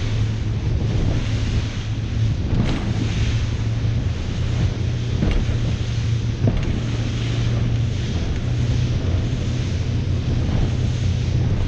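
Wind buffeting the microphone over the steady low drone of a fishing boat's engine and the wash of sea water, with a few brief knocks.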